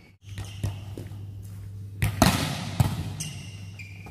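A volleyball is struck hard in spike practice about two seconds in, and a second thump follows under a second later, both echoing in a large hall. Sneakers squeak briefly on the court floor, over a steady low hum.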